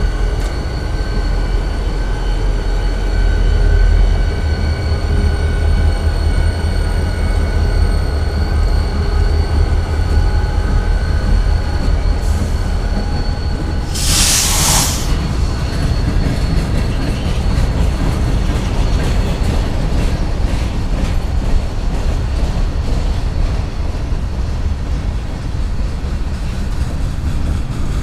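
Pan Am Railways train running, a heavy steady rumble of wheels on rail with thin high wheel-squeal tones through the first half. A loud hiss lasts about a second halfway through, and quick rail clicking follows in the second half.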